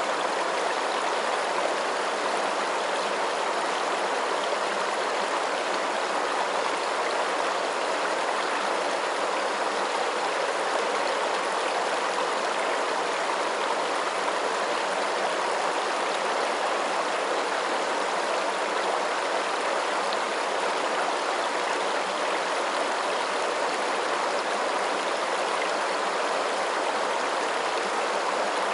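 Flowing water: a steady, unbroken rush with no separate splashes or drips.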